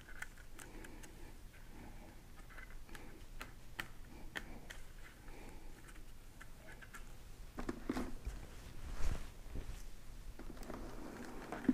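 Faint clicks and light rustling of nitrile-gloved hands handling and pressing on a plastic helmet face shield with a Pinlock anti-fog insert, with a soft knock about nine seconds in.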